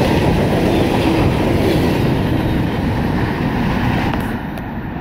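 Freight cars of a long freight train rolling past, a steady rumble of steel wheels on rail with clickety-clack over the joints. The noise eases slightly about four seconds in.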